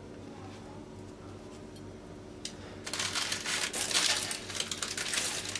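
Parchment baking paper crinkling and rustling as sesame-coated dough pieces are pressed and arranged on a lined baking tray. It starts about three seconds in, after a few seconds of faint steady room hum.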